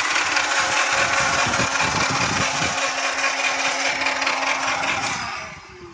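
1993 Acura Integra's four-cylinder engine cranking on the starter motor without catching: a steady starter whine over an uneven low chug, and the cranking stops about five seconds in. The engine cranks but won't fire after the car ran out of gas, even though the fuel pump is delivering fuel.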